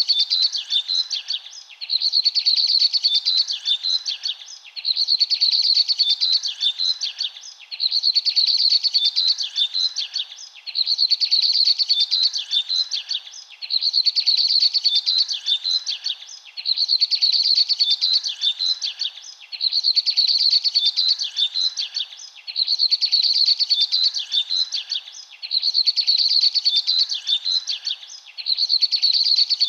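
Birds chirping and twittering in bursts of about two and a half seconds that repeat almost identically every three seconds, like a short looped recording.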